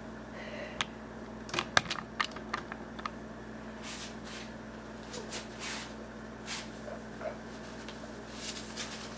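Handling noise as a rooster is lifted off a person's shoulder: scattered sharp clicks in the first three seconds, the loudest near the start, then soft rustles of feathers and clothing, over a steady faint hum.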